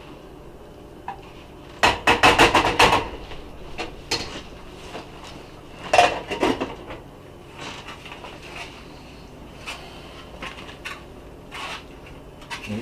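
A metal spoon clinking against a saucepan and serving bowls while chili is dished up: a quick run of about eight sharp clinks about two seconds in, one louder clink near the middle, and scattered lighter taps.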